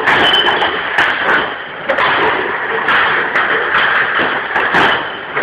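Plastic beer crates full of glass bottles being handled and tossed, bottles clinking and rattling in the crates with repeated knocks of crates landing.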